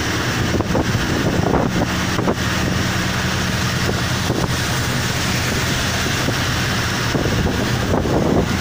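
Steady rushing noise of a moving vehicle, with a low engine hum underneath and wind buffeting the microphone.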